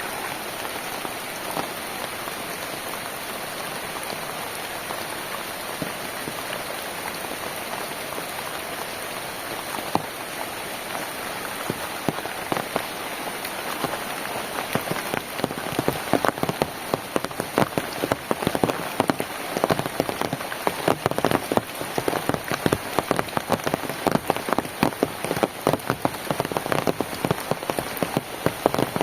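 Rain falling steadily, with individual heavy drops striking a surface; about halfway through the sharp drop impacts become much more frequent and louder.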